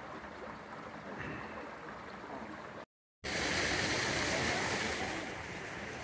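Shallow creek water running steadily over rocks. The sound cuts out completely for a moment about halfway through, then comes back louder.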